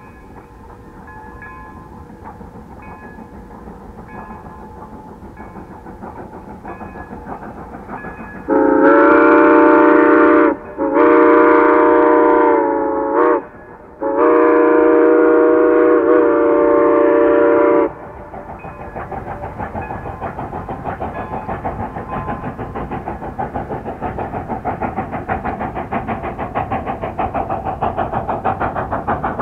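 McCloud River Railroad No. 18, a 2-6-2 steam locomotive, sounds its chime whistle in the grade-crossing signal: two long blasts, one short and one long. After that its exhaust chuffs rhythmically and grows louder as the engine works.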